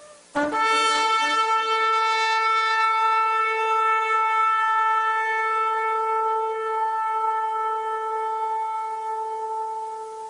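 Shofar (ram's horn) sounding one long, held blast. It begins with a brief lower note, settles on a steady pitch and fades out near the end.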